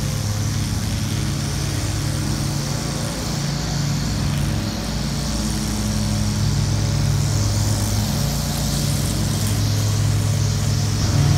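A steady mechanical drone of a running engine or motor: a constant low hum with a hiss above it, growing a little louder near the end.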